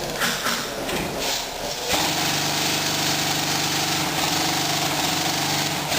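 A steady motor-like mechanical buzz that starts about two seconds in and holds.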